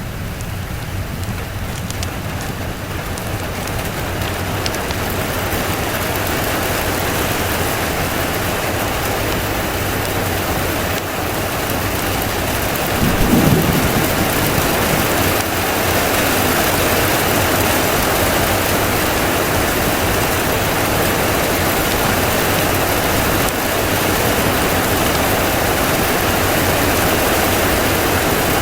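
Steady rain, swelling gradually louder over the first several seconds, with a short low rumble of thunder about halfway through.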